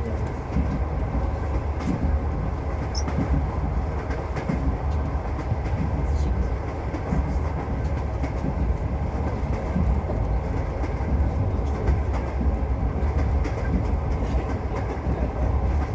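Passenger train running, heard from inside the carriage: a steady low rumble with faint scattered clicks from the wheels on the rails.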